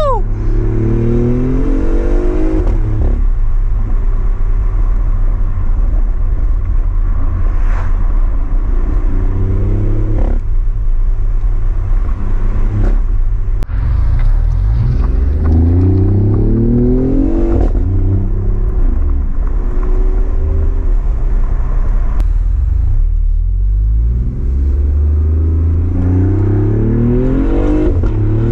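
BMW i8's turbocharged 1.5-litre three-cylinder engine through an aftermarket exhaust, heard from inside the cabin, accelerating hard several times: the revs climb and drop back at each upshift, with steadier cruising between pulls.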